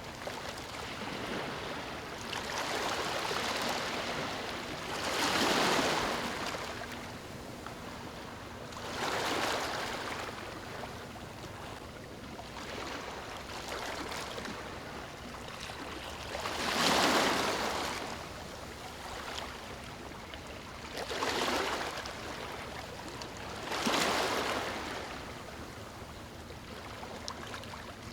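Small waves lapping on a beach: a steady wash of water with a soft rush as each wave breaks and runs up, every few seconds, the strongest about halfway through and near the end.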